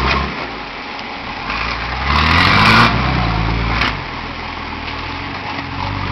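An off-road 4x4's engine under load on a steep climb. It revs up about a second and a half in, with a brief rushing noise at the peak, then drops back to a lower, steady run about four seconds in.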